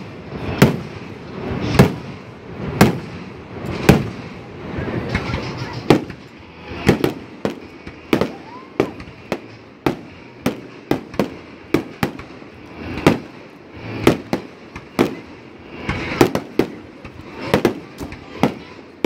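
Aerial firework shells bursting in a run of sharp bangs, one to three a second, with faster clusters of bangs partway through and near the end.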